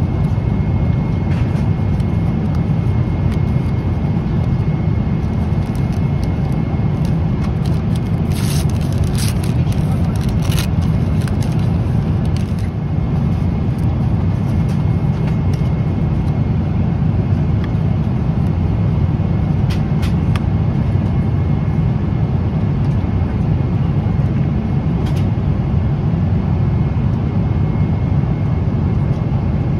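Steady low rumble inside a jet airliner's cabin, from the engines and airflow, with a few light clicks about eight to eleven seconds in.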